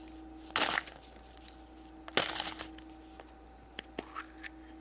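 Foil wrapper of a chocolate surprise egg crinkling in two short bursts, a second or so apart, followed by a few light clicks, over a faint steady hum.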